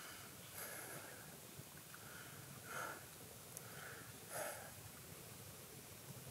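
A man breathing quietly: a few soft breaths or sniffs over a faint hiss, the two strongest about three seconds and four and a half seconds in.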